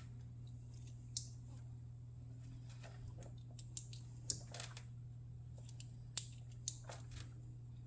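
Scattered small, sharp clicks as wires and terminals are handled and fitted into a plastic GT 150 connector, over a steady low hum.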